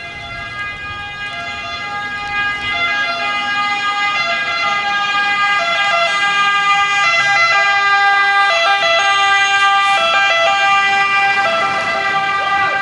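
Fire engine's two-tone siren alternating between two pitches, growing louder over several seconds as the truck approaches and comes past close by.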